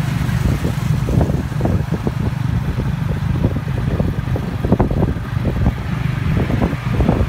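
Motorcycle engine running steadily as it tows a tuk-tuk carriage down the road, heard from the carriage, with frequent short rattles and knocks from the carriage over the road surface.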